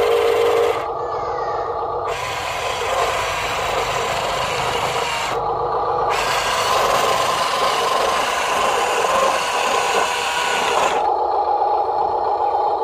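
Huina radio-controlled dump truck running, its electric drive motor and gearbox giving a steady mechanical whine.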